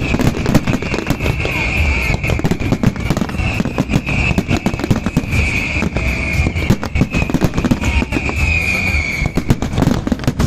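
Fireworks display going off: a dense, rapid run of bangs and crackles with no let-up, with an on-and-off high hissing or whistling band above it.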